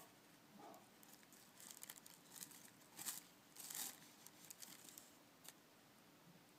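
Faint scratchy crackling and rustling of crumbly fungus-bed sawdust substrate being dug and scraped out of a plastic container, in short bursts from about a second and a half in, the loudest near the middle.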